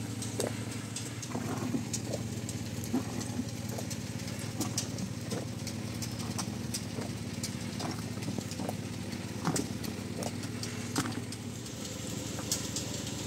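A motor running with a steady hum, under scattered small pops and clicks as boiling sugarcane juice is ladled out of a wide open pan with a plastic mug.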